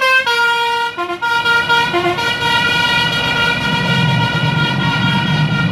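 A bus's 'telolet basuri' musical horn playing a short tune: a few quick note changes in the first two seconds, then one long held note. The bus engine rumbles underneath, growing louder as the bus passes.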